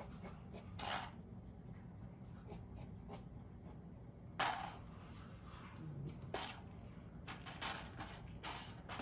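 Cat working a food puzzle toy: scattered light knocks and clicks, the loudest about four and a half seconds in and several more near the end, over a low steady hum.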